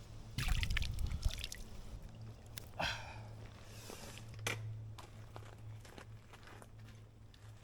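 Light splashing and dripping of creek water, with a short rough burst about half a second in, a louder splash near three seconds, and a few small knocks.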